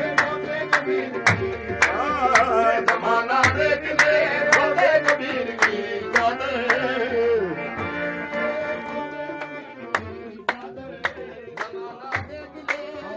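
Devotional qawwali-style music: tabla strokes keep a steady beat, about two or three a second, under held melodic tones. A wavering sung vocal line carries the first half and fades out about seven seconds in, leaving the tabla and the held tones.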